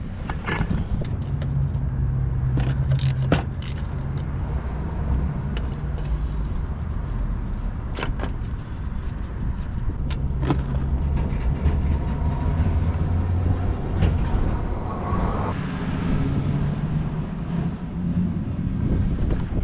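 Car running with a steady low hum, and a few sharp clicks and knocks over it.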